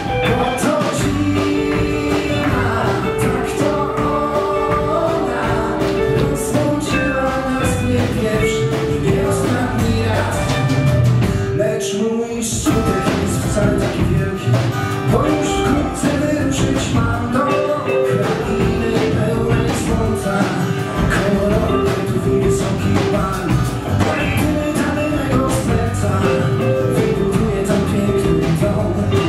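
Live rock band music: acoustic guitar, electric guitar and electric bass over a drum beat, with a short break about twelve seconds in.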